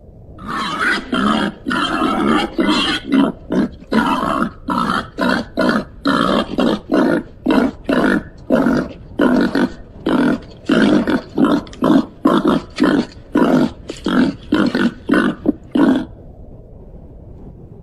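Babirusa grunting in a quick run of short, rough grunts, about two a second, which stops near the end.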